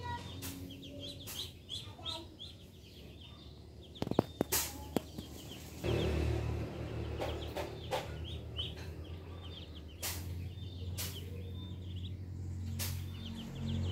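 A brood of ducklings peeping, with many short, high peeps in rapid runs. A few sharp knocks come a little after four seconds in, and a low rumble sets in about six seconds in.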